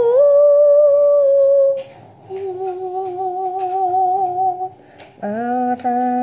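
A voice humming long held notes, stepping between pitches: a high note, a slightly higher one, then a lower one, and after a short break about five seconds in a deeper, buzzier hum broken by brief pauses.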